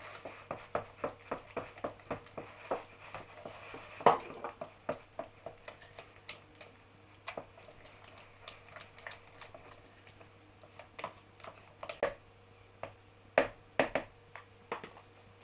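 Fork beating egg yolks into a thick mashed pumpkin and potato mixture in a glass bowl, the tines clicking against the glass in quick strokes, about four a second at first, then more scattered, with one louder knock about four seconds in.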